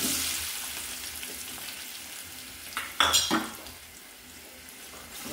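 Chopped onions hitting hot oil in a steel pan start to sizzle, a loud hiss that sets in suddenly and slowly dies down. About three seconds in, a metal spoon scrapes and knocks against the pan as the onions are stirred.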